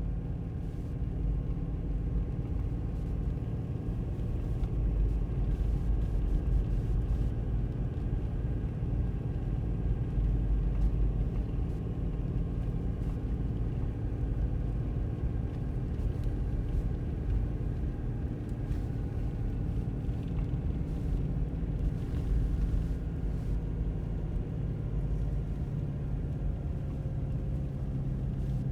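A car driving at a steady pace on a snow-covered road: a steady low rumble of engine and road noise, with a steady engine hum and no change in speed.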